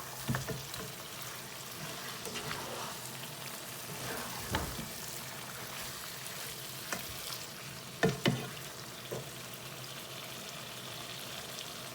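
Lamb curry sizzling in a pot as it is stirred, with a spoon scraping and knocking against the pot a few times. The loudest is a pair of knocks in quick succession about eight seconds in.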